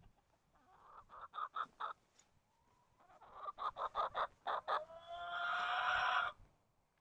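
Chicken clucking in two quick runs, then a long drawn-out call with a slight upward rise near the end.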